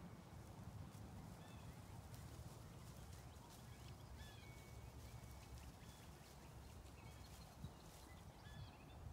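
Near silence: faint, scattered chirps of small birds over a low, steady rumble.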